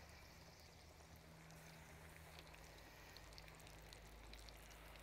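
Faint sizzling of flour-coated chicken pieces deep-frying in hot oil, with scattered small crackles that come more often in the second half.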